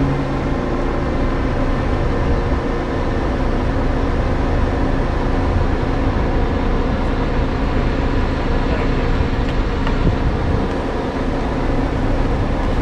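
Large vehicle engine running at a steady speed, a constant hum that holds the same pitch throughout.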